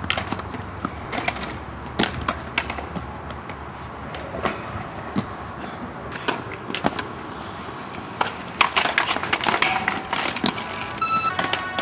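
Inline skate wheels rolling over skatepark concrete, with frequent sharp clacks as the skates strike the ground. Music with held notes comes in just before the end.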